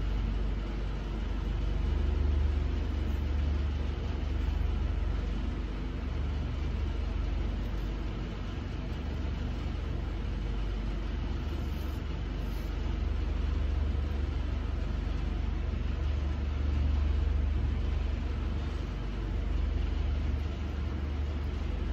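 Idling truck engine: a steady low rumble with an even hum above it.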